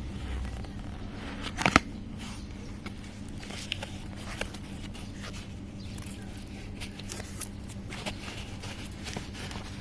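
Scattered light clicks and rustles of an object being handled, with one sharp click a little under two seconds in, over a faint steady low hum.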